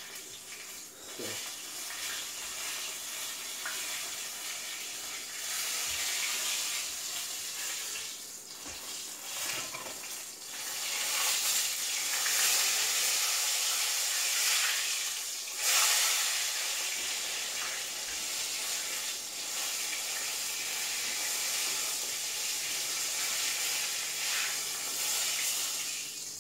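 Fish frying in hot oil: a steady sizzling hiss that swells louder for a few seconds around the middle.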